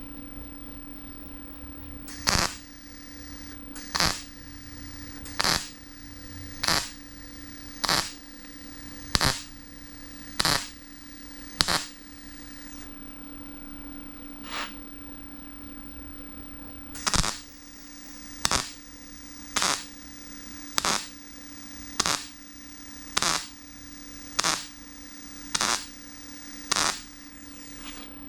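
MIG welder laying a row of short tack welds on a car body's sheet-metal fender patch, each a brief crackle about a second apart, in two runs of eight and nine tacks with a pause between. A steady hum runs underneath. The short tacks keep the heat down so the thin panel does not oil-can.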